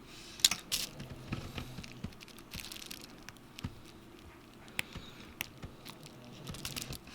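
Small irregular clicks and taps of a screwdriver and other small tools handling the opened iPhone 7 Plus while a screw is taken out, with a short scratchy rustle about two and a half seconds in.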